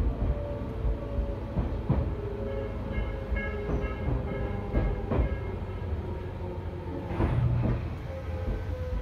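Running noise inside a Tobu 10000-series electric train car: wheels clack over rail joints every second or two over a steady rumble. The faint whine of its DC compound-wound traction motors falls slowly in pitch as the train slows for the next station.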